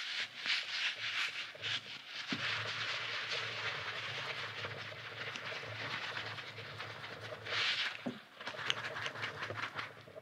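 Daiso goose-shaped squishy squeeze toy being squeezed and kneaded in the hands: quick squishing and rubbing strokes, a steadier rub through the middle, then another run of quick squeezes near the end.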